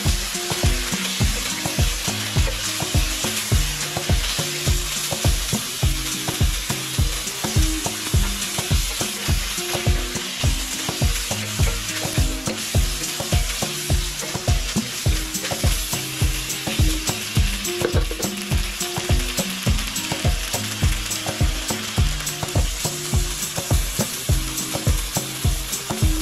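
Tofu, pork and vegetables sizzling in a hot wok while being stirred with a wooden spatula, over background music with a steady beat of about two pulses a second.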